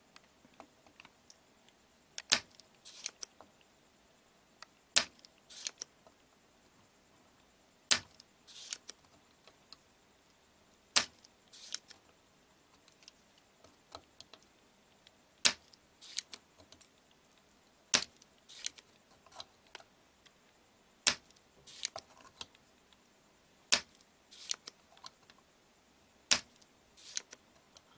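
Spring-loaded desoldering pump (solder sucker) firing: about nine sharp snaps, one every two to three seconds, each followed by a few lighter clicks as the plunger is cocked again. It is sucking the solder off the pins of a TV's horizontal IC so that the chip can be removed and replaced.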